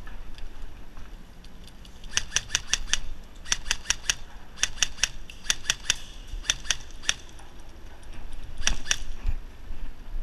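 Short bursts of airsoft electric gun fire: rapid sharp clicking shots in groups of four or five, repeated about six times.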